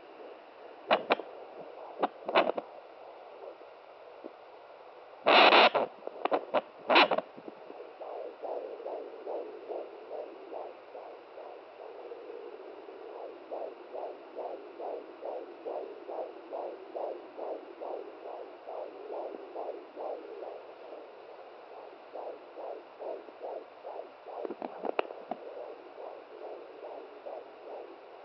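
Home fetal doppler's speaker playing a 17-week baby's heartbeat: a fast, even whooshing pulse at about two and a half beats a second. In the first several seconds, and again briefly near the end, loud crackling bursts break in as the probe shifts on the belly.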